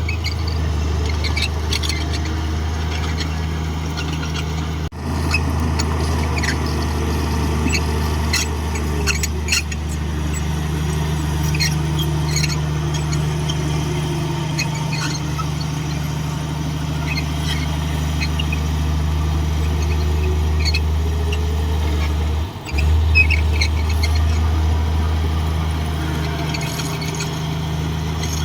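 Komatsu D58 bulldozer's diesel engine running steadily under a low drone, with many short high squeaks and clicks scattered over it.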